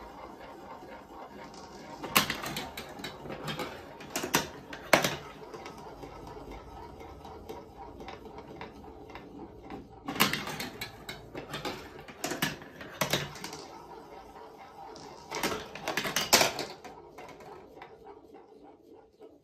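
Marbles rolling through a plastic block marble run's tracks and tubes, with three bursts of sharp clacking as they drop down steps and strike the plastic pieces. The rolling dies away near the end.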